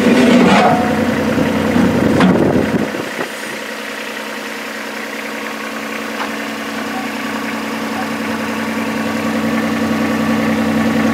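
Yuchai YC15-7 mini excavator's diesel engine running while the machine works, with clanks and knocks in the first few seconds, then a steady engine hum that slowly grows louder.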